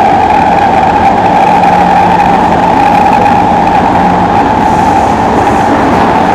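Singapore MRT train running through a tunnel, heard inside the carriage by the doors: a loud, steady roar of wheels on rail and traction equipment, with a steady mid-pitched drone and a low hum under it.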